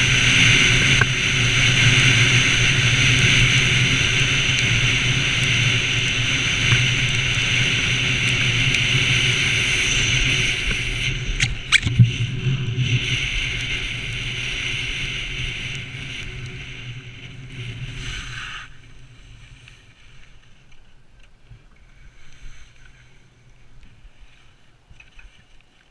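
Steady rush of wind over a helmet-mounted camera, with skis hissing and scraping on groomed snow during a fast downhill run. There is a single sharp knock about halfway through. About three quarters of the way through the rush dies away as the skier slows and stops.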